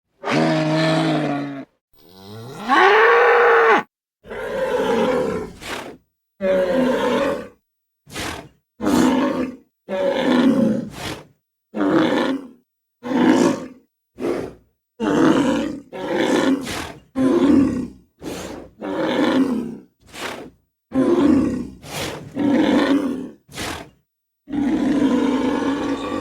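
Spliced rhino roar sound effects, made from large-animal bellows (rhino, moose and bull recordings): about twenty separate calls in a row, each cut off into silence. An early call rises and then falls in pitch, and most of the rest are short, harsh bellows of a second or less.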